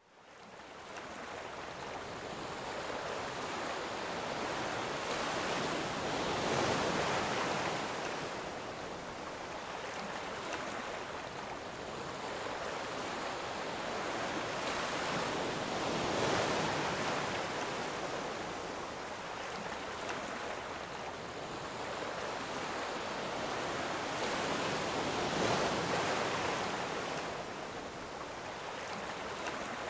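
Ocean surf washing in: a steady rush of waves that swells and eases about every nine seconds, starting suddenly out of silence.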